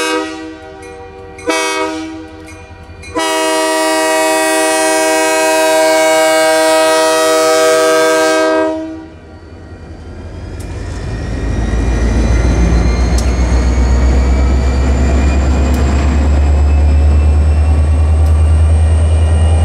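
Diesel locomotive's multi-chime air horn sounding for a grade crossing: a blast ends just as it begins, a short blast comes about a second and a half in, then a long blast of about five and a half seconds. The locomotive then passes close by, its diesel engine rumbling deep and growing louder, with a thin rising whine. The passenger cars follow with a few clicks of wheels over rail joints.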